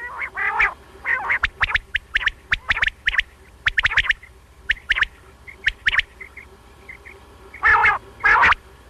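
Common quail calling: many short, sharp notes, often in quick groups of two or three, with harsher, longer rasping calls near the start and again near the end.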